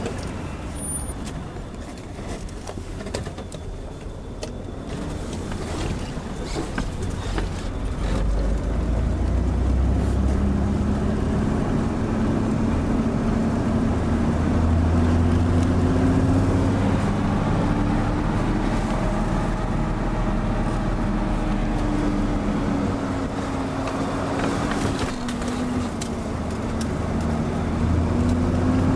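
Vehicle engine and road noise heard from inside the cabin while driving through soft sand dunes. The engine note rises and falls with the throttle, and it grows louder about eight seconds in.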